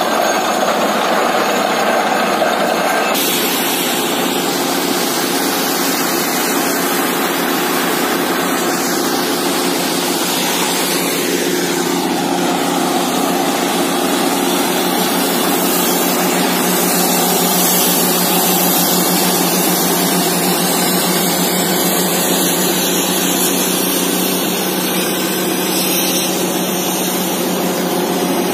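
Borewell drilling rig and its truck-mounted air compressor running loud and steady, an even machine din. The mix changes about three seconds in.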